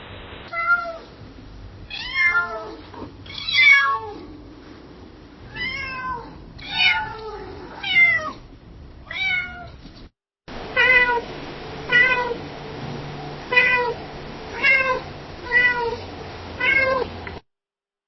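Domestic cat meowing over and over in two separate recordings: first about nine meows, rising and falling in pitch, then, after a brief break, another series of about seven meows at an even pace, roughly one a second. The meowing stops shortly before the end.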